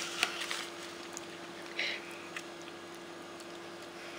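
Hands pressing and arranging sauce-coated marinated chicken wings in a glass baking dish: faint wet squelches and small clicks, with a short hiss a little under two seconds in. A steady low hum runs underneath.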